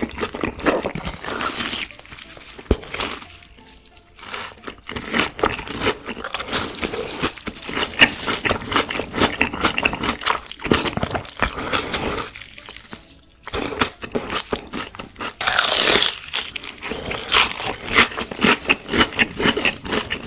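Close-miked ASMR eating sounds: repeated crunchy bites and chewing of crisp food, in irregular crackly bursts with brief pauses about four and thirteen seconds in.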